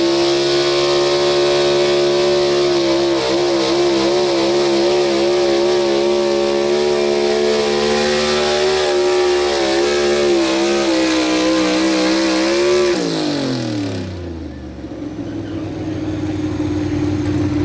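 A Pro Stock 4x4 pulling truck's engine held at high revs on a pull for about thirteen seconds, its pitch wavering slightly. The revs then fall away quickly as the throttle is lifted, and a quieter, lower steady engine note follows near the end.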